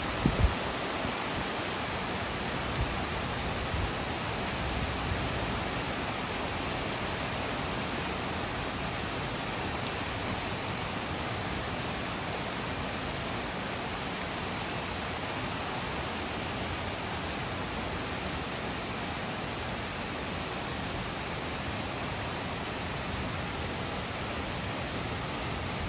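Steady downpour of rain falling on tree leaves and a wet street, an even rushing hiss, with a couple of brief low thumps about half a second in.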